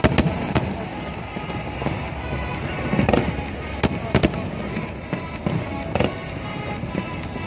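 Aerial firework shells bursting overhead in a string of sharp bangs at irregular intervals, with music playing underneath.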